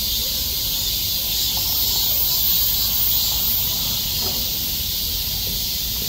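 A dense chorus of many cicadas calling at once: a steady, high, hissing drone that swells and eases slightly.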